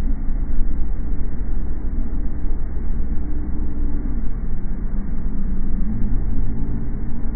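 Steady low rumble of a car driving, heard from inside the cabin on a dull, muffled recording, with faint humming tones that drift slightly in pitch.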